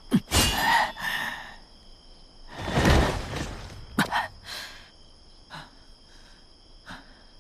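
Fight sound effects: three loud rushes of noise with sudden starts, each about a second long, in the first five seconds, then a few softer knocks. Under them runs a steady high chirring of crickets.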